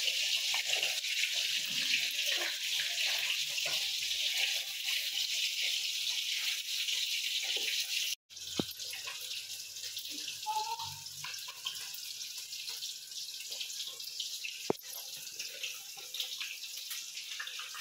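Onion, garlic and ginger sizzling in hot oil in a pan: a steady hiss that breaks off abruptly about eight seconds in and carries on quieter, with a couple of light clicks.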